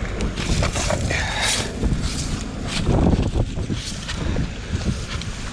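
Strong wind buffeting the microphone in a low, steady rumble, with scattered faint clicks and rustles.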